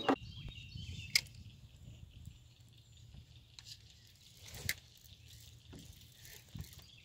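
Quiet lakeside ambience with faint birdsong, broken by a few sharp knocks and rustles from fishing gear being handled in a canoe. The loudest knock comes right at the start, another about a second in and a third a little past halfway.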